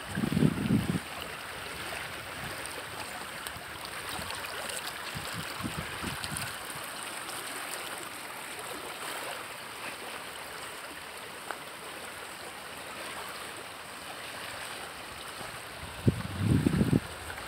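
Swollen, muddy creek in flood, rushing past its bank: a steady wash of flowing water. Short low rumbles on the microphone come near the start and again near the end, louder than the water.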